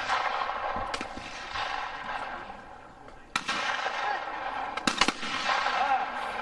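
Shotguns firing at clay targets in a trap squad: a report about a second in, another about three and a half seconds in, then two nearly together about five seconds in. Each shot is followed by a long echo that dies away over a second or two.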